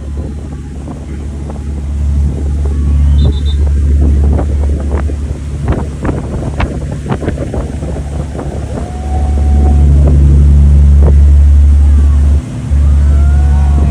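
Motorboat engine running with wind buffeting the microphone and short sharp crackles of splashing. The engine grows louder about two-thirds of the way through and cuts out for a moment near the end.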